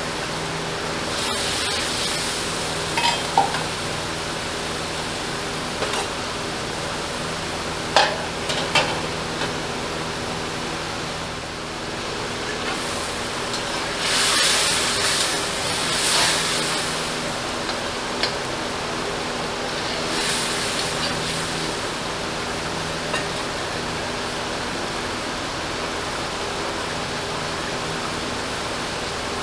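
Potato wedges simmering and sizzling in a tomato-onion masala in a steel karahi, with a few sharp knocks of a spatula on the pan in the first several seconds. A spatula stirs and scrapes through the pan for a couple of seconds about halfway through, and briefly again a few seconds later.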